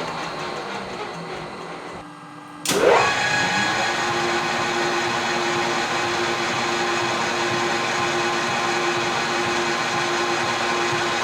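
An old metal lathe's motor winding down with falling pitch, then, after a short lull about two seconds in, a click as it is started again and it spins up to a steady running hum.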